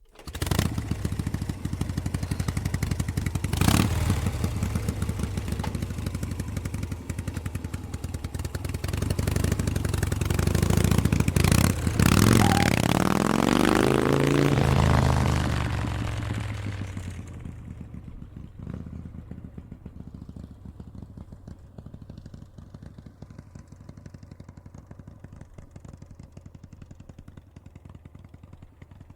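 Harley-Davidson Panhead V-twin motorcycle engine running with a loping beat and a sharp crack a few seconds in. It grows louder, passes about twelve to fifteen seconds in with a drop in pitch, then fades away.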